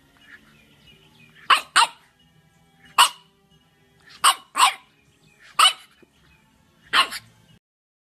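French bulldog barking: seven short, sharp barks, two of them in quick pairs. The sound cuts off abruptly near the end.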